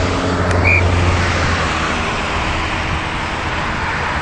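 Steady outdoor background rumble and hiss, heaviest in the low range, with one brief high peep about a second in.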